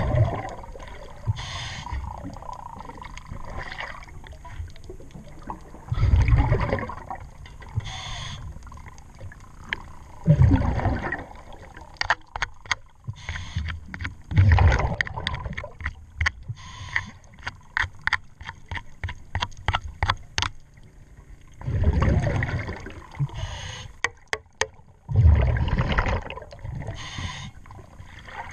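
Scuba diver breathing through a regulator underwater: loud gurgling bursts of exhaled bubbles every few seconds. In the middle comes a rapid run of sharp clicks and scrapes as growth is worked off the propeller shaft by hand.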